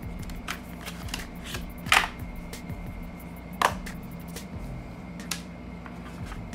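Smartwatch packaging being handled during unboxing: rustling and small clicks of cardboard and a plastic tray, with two sharper taps about two and three and a half seconds in as items are set down.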